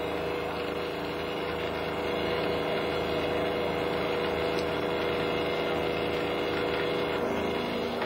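A ship's cable winch running steadily as it hauls a load up on steel cable: an even mechanical drone at a constant pitch.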